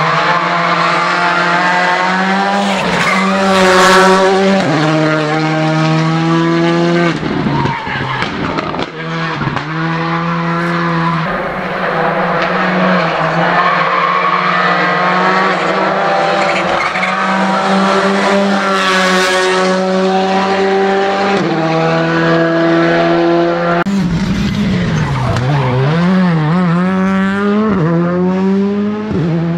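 Rally car engines at full throttle, the pitch climbing and dropping repeatedly as they shift up through the gears, with lifts and downshifts into corners in between.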